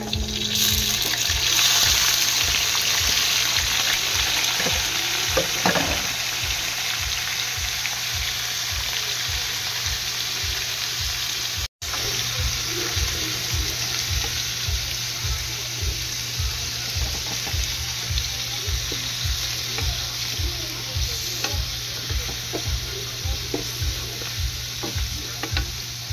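Squid dropped into hot oil with garlic and onion in a wok, setting off loud sizzling frying about half a second in that carries on steadily and slowly eases as the pan cools under the load.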